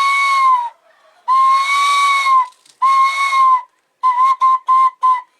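A handmade jícaro (calabash gourd) whistle blown in a breathy, steady single tone, imitating a bird call. It plays two long notes and a shorter one, then a quick run of short toots near the end.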